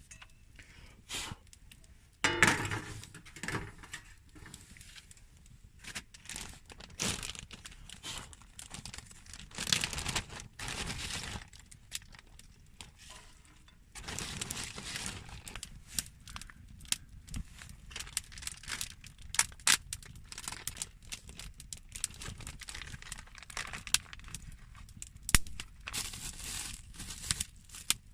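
Irregular crinkling and rustling of crinkly material being handled, with scattered sharp clicks and knocks.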